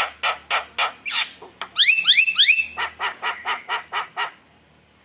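Javan myna calling in a fast series of harsh, chattering notes, about four a second, with a run of rising whistled notes about two seconds in; the calling stops near the end.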